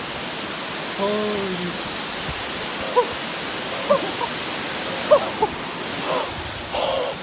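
Steady rushing of a large waterfall.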